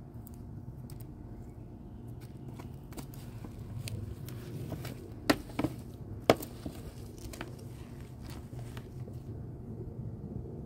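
Hands pulling weeds and dry leaves out of garden soil: scattered crackling and rustling, with two sharper clicks about five and six seconds in.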